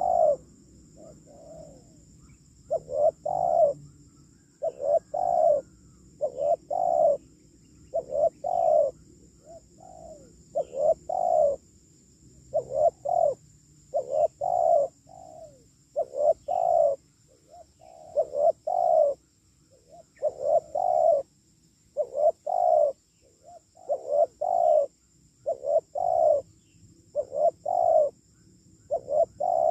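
Spotted dove (tekukur) cooing: short phrases of two or three low coos, repeated about every two seconds. A faint steady high whine runs underneath.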